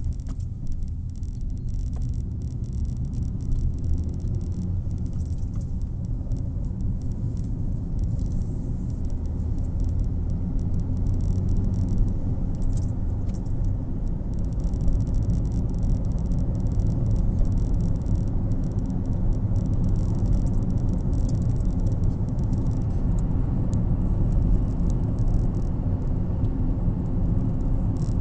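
Road and engine noise heard inside a moving car's cabin: a steady low rumble that grows a little louder as the car gathers speed, with faint light rattles.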